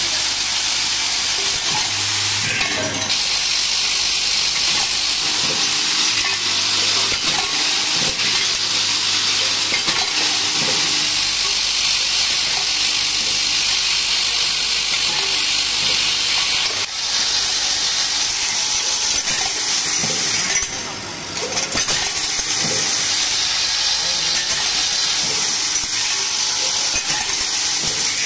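Automatic screw counting and packing machine running: a steady high hiss, a low hum that switches on and off every few seconds, and light clicks as parts drop. The sound briefly drops in level about two-thirds of the way through.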